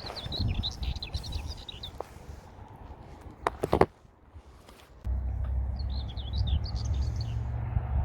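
Birds chirping in quick, high twitters at the start and again in the second half, over low wind rumble on the microphone. A few sharp knocks come near the middle.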